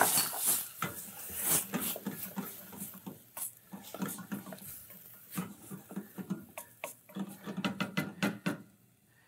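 Wooden spoon stirring and breaking up whole tomatoes in a stainless steel saucepan, with irregular knocks and scrapes of the spoon against the pan.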